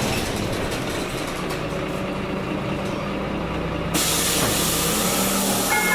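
Karosa B951E city bus running, heard from inside, its engine quieter as it slows for a stop. About four seconds in, a sudden loud hiss of compressed air starts from the bus's pneumatic system and holds while the engine idles.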